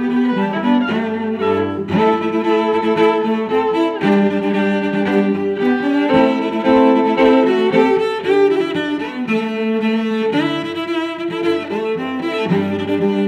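Background instrumental music of long held notes, changing chord about every two seconds.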